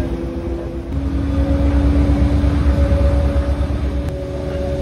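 Passenger boat's engine running with a steady low rumble and droning hum; about a second in it grows louder and the hum shifts to a different pitch.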